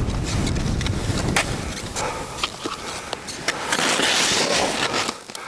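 Skis or a snowboard sliding and scraping over snow. Wind rumbles on the microphone for the first couple of seconds, with scattered clicks, and a loud hissing scrape of snow comes at about four seconds in.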